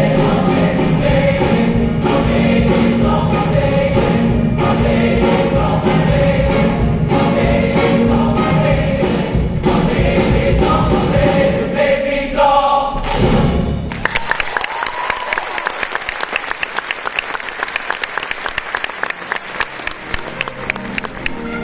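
Choir singing with instrumental accompaniment, building to a final held chord about two-thirds of the way through. Audience applause follows, and music starts again near the end.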